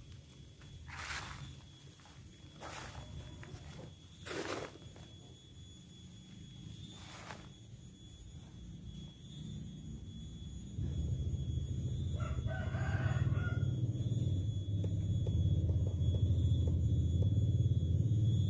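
Low engine rumble, most likely the chopper's 5.5 HP petrol engine running, getting louder about two-thirds of the way through. Over it, chickens cluck a few times and a rooster crows once, briefly.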